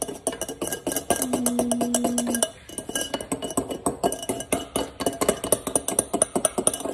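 Handheld whisk beating coffee and protein shake in a glass measuring cup, the whisk clinking rapidly and continuously against the glass. A steady low hum sounds for just over a second, starting about a second in.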